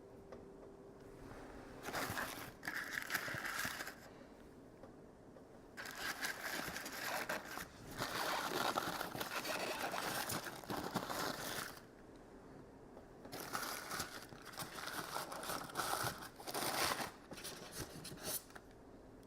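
Packaging crinkling and rustling as parts are unwrapped by hand, in three stretches with short pauses between.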